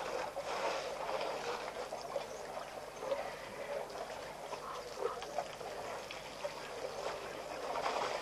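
Elephants drinking at the edge of a waterhole: soft irregular splashing and trickling of water over a steady outdoor hiss.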